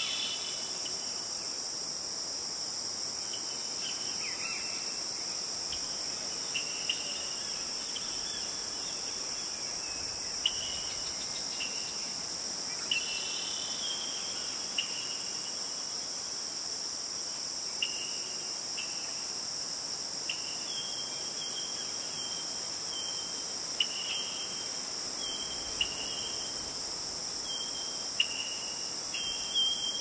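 Steady high-pitched insect chorus in woodland, with short high chirps scattered through it that come more often in the second half.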